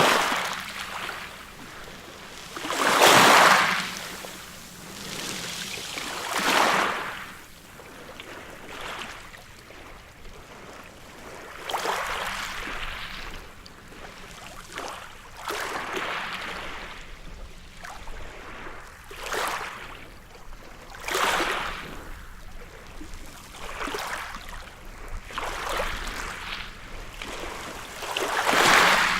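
Ocean waves breaking and washing up a beach, a hissing surge every few seconds that swells and fades away. The biggest surges come about three seconds in and near the end.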